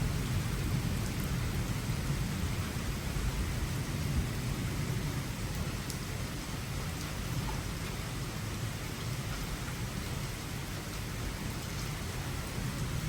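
Rain falling steadily in a thunderstorm, under a low rumble of thunder that slowly fades.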